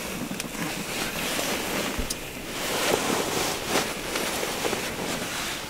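Wind gusting and buffeting the microphone in an uneven rush, with a few faint ticks.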